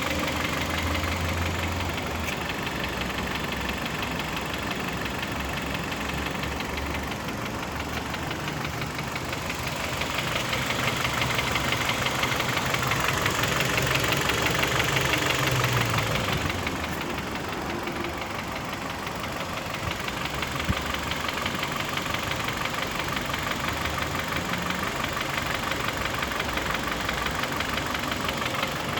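Kia Optima K5's G4KD 2.0-litre four-cylinder petrol engine running with a steady, rapid knock, which the owner takes for a piston knock rather than valve noise. It grows louder for a few seconds midway.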